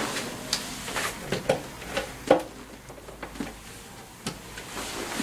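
Screwdriver and hands working on a scooter's front fender mount, fastening a screw: a string of scattered light clicks and knocks, the sharpest a little past two seconds in.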